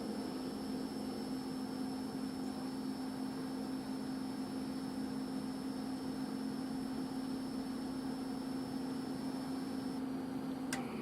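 VP-1000's fan unit giving a steady low electrical hum with a faint high whine. The owner reports this abnormal noise comes before the fan starts turning. Near the end the whine drops out, then a sharp click and the hum stops.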